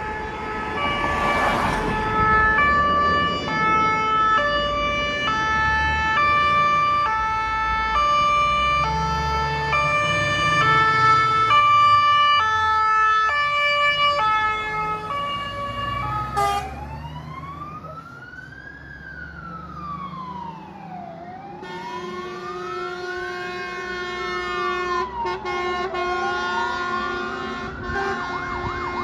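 Scania P410 fire engine leaving on an emergency run: its multi-tone air horns play a stepped, alternating two-chord call for about the first sixteen seconds. Then a wailing siren rises and falls slowly and grows fainter as the truck drives away, with the diesel engine rumbling underneath.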